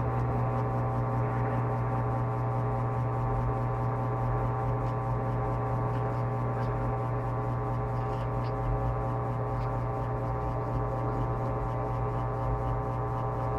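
Top-load washing machine (Electrolux LTP15) spinning its drum between wash and rinse. The motor runs at a constant speed with a steady low hum and a cluster of steady whining tones over it.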